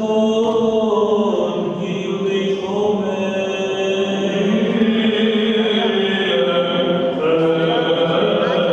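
Byzantine chant of the Greek Orthodox service: voices chanting a slow melody in long held notes, with the pitch shifting in steps every few seconds.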